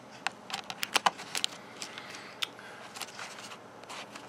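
Sharp little plastic clicks and taps from fingers working a Dell Latitude laptop's replacement keyboard and its ribbon cable into place: a quick run of clicks in the first second and a half, the loudest about a second in, then a few scattered ones.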